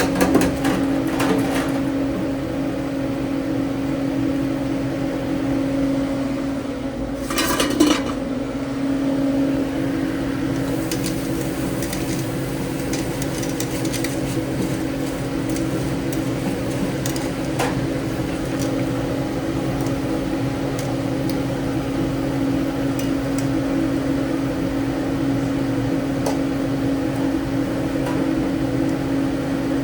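Steady hum of commercial kitchen equipment, with scattered light clatter of pans and utensils and a brief louder burst of noise about seven seconds in.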